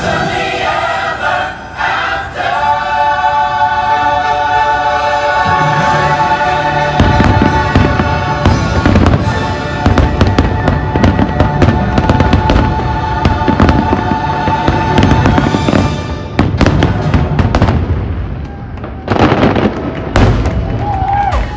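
Fireworks shells bursting in quick succession, the cracks growing dense about seven seconds in, over the fireworks show's soundtrack, an orchestra and choir holding one long chord. The chord fades out about sixteen seconds in while the bursts carry on.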